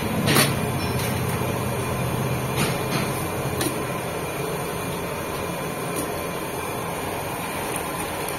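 Steady background noise with a few brief wet splashes as chunks of raw goat-head meat are lifted and squeezed out of a bowl of water.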